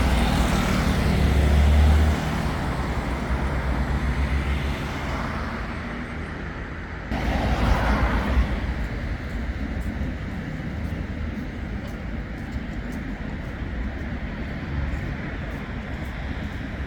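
City street traffic: a heavy vehicle's engine runs loudly and low in the first two seconds, then steady road noise of passing cars. About seven seconds in, the noise jumps up suddenly as another vehicle goes by.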